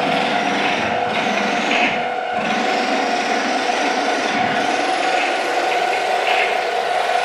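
Live electronic noise music from laptops and effects gear played through an amplifier: a dense, unbroken wash of noise over a steady held tone, with fluttering swells in the upper range.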